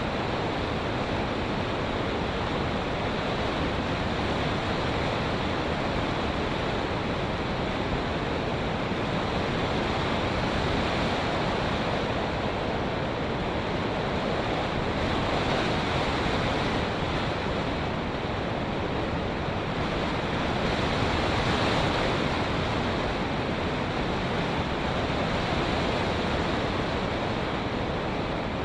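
Steady rush of wind buffeting the microphone of a camera riding on a flying RC plane, an even noise with slow swells and no distinct tones or events.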